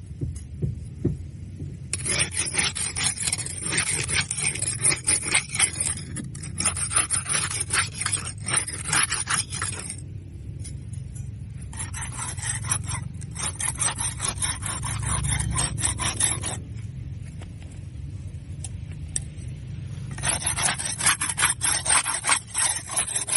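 Barnacles being scraped off a boat hull: three spells of rapid rasping scrape strokes, each several seconds long, with short pauses between them, over a steady low rumble.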